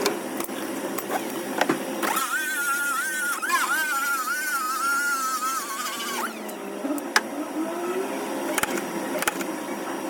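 Metalwork on a car body panel: scattered sharp taps and clicks, with a high, wavering squeal lasting about four seconds that starts about two seconds in.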